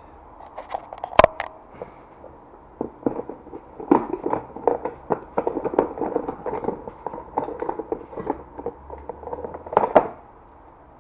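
Hard objects clattering and knocking as they are handled and sorted, like rummaging through parts and tools. There is a sharp knock about a second in, then a long stretch of quick irregular rattling, and a loud knock near the end.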